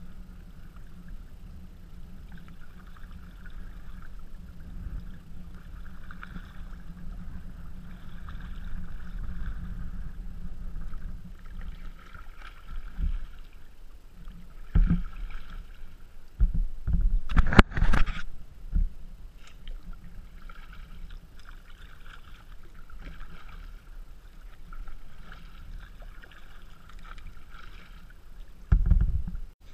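Sea kayak under way: water splashing and lapping around the bow with the swish of paddle strokes coming back about every one and a half seconds, over a low rumble on the microphone. A burst of loud knocks about halfway, and a heavy thump near the end.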